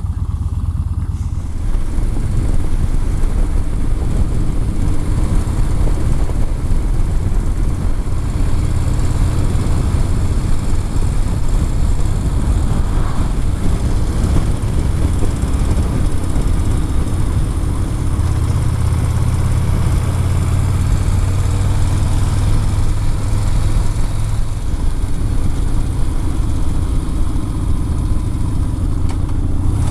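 Yamaha Bolt XV950R's air-cooled V-twin engine running at road speed, with wind and road noise. It gets louder about a second and a half in and swells again for a few seconds past the middle.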